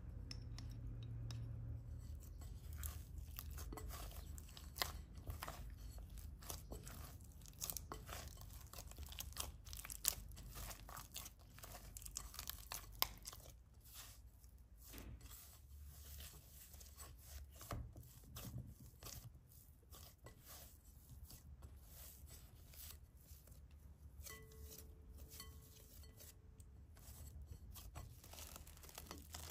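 Hands kneading and shaping soft yeast bread dough in a glass bowl: faint, irregular clicks and crackles over a low steady hum.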